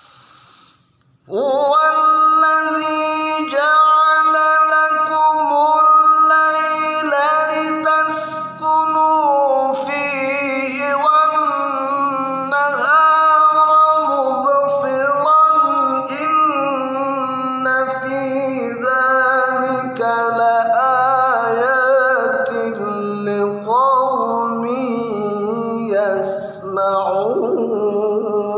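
A man chanting Quran recitation in an ornamented melodic style, coming in about a second in and holding long, wavering, decorated notes with only short breaks. The reciter's voice is still heavy from a cough and flu, by his own account.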